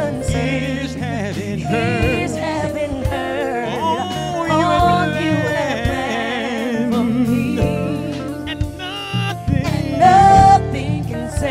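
Gospel worship song: a solo voice singing a wordless stretch of runs and vibrato over sustained instrumental accompaniment.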